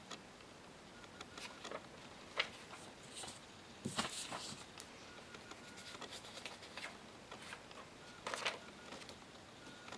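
Paper index cards being handled and swapped: a few short rustles and clicks, the longest about four seconds in and another near the end, over faint room hiss.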